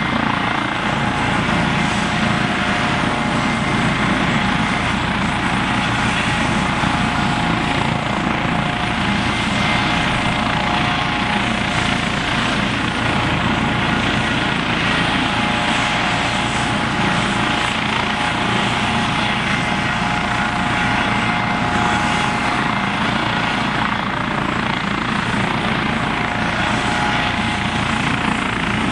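Eurocopter EC155 twin-turbine helicopter running close by: a loud, steady rotor and turbine noise with a constant whine over it.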